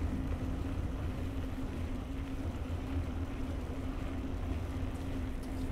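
Steady low mechanical rumble with a constant hum, running evenly throughout.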